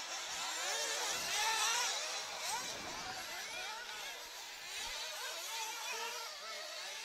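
Small nitro engines of 1/8-scale off-road racing buggies, several at once, whining and rising and falling in pitch as the cars accelerate and brake around the dirt track.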